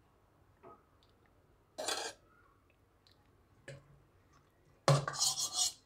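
Perforated steel spoon scooping soaked gunda fruits and raw mango pieces into a stainless steel mesh strainer: scattered clinks and scrapes of metal on metal as the fruit tumbles in. One brief clatter comes about two seconds in, and a louder run of clatters follows near the end.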